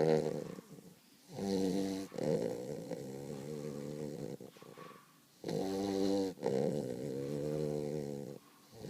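Weimaraner puppy snoring in its sleep: drawn-out, pitched snores in a regular breathing rhythm, a short one followed by a longer one, twice over.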